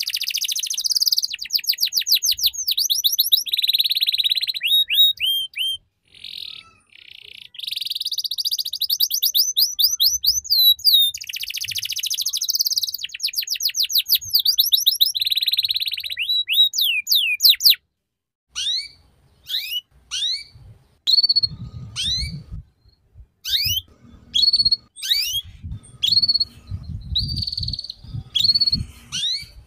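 Domestic canary singing its rolling 'ngeriwik' song: fast trills of rapidly repeated high, falling notes, broken by short pauses. The trilling cuts off sharply about 18 seconds in and gives way to spaced single chirps and short upward sweeps, with a low buzzing sound underneath near the end.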